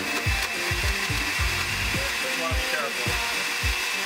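Countertop blender motor running steadily while oil is slowly drizzled in through the lid, emulsifying a miso gravy.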